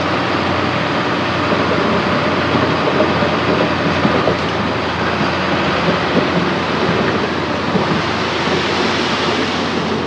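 Crawler bulldozer's diesel engine running steadily under load, with a continuous clatter of its steel tracks.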